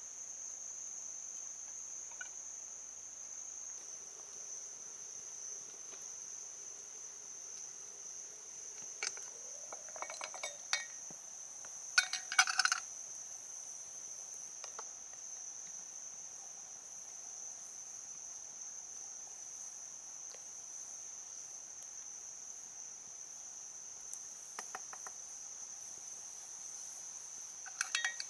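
Steady high-pitched drone of insects, likely crickets, running unbroken. A few short clicks or clinks come in between, about ten and twelve seconds in and again near the end.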